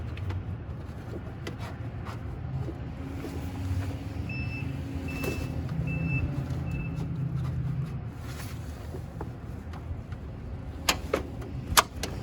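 Steady low hum with a run of four short, high, evenly spaced beeps about four to seven seconds in. Near the end come several sharp clicks and knocks as the new hood release cable is worked through the engine bay.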